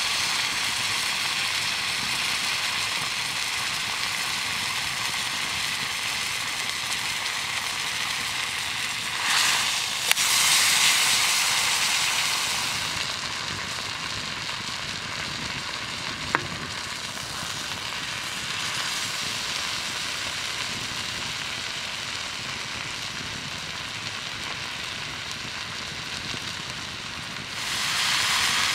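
Thick buffalo steak sizzling in hot fat in a cast-iron skillet as it is seared on its edge. The sizzle swells louder about ten seconds in and again near the end, with one sharp click partway through.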